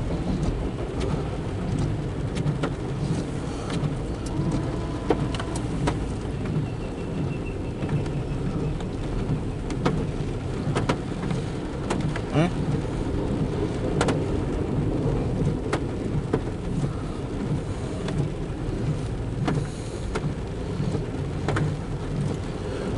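Car cabin noise while driving in rain: a steady low road and engine rumble, with raindrops and windshield wipers ticking now and then on the glass.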